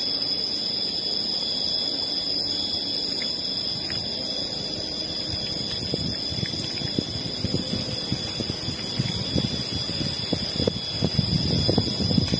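Handling of a wet nylon-mesh umbrella fish trap: the net rustles and scrapes in many short strokes, growing busier near the end, over a steady high-pitched whine.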